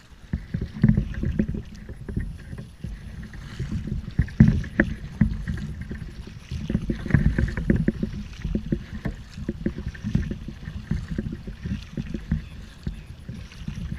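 Kayak on the water, with irregular dull knocks and bumps against its hull throughout.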